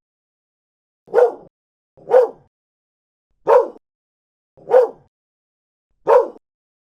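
A dog barking five times, short single barks of the same pitch about a second apart, with silence between them.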